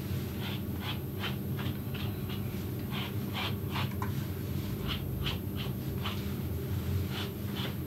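Slicker brush stroking through a puppy's curly coat, a short scratchy brush stroke two or three times a second, pausing briefly twice.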